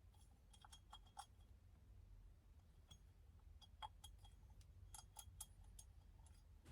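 Faint, scattered small clicks and light clinks of quick-release steering hub parts being handled and fitted together, in clusters a few seconds apart over quiet room tone.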